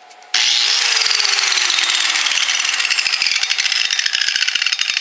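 Mastercraft 6 amp 4.5-inch angle grinder coming in suddenly and then winding down, its whine falling steadily in pitch while a fast clicking rattle grows plainer as it slows. The owner takes the rattle on stopping to be the grinder braking itself.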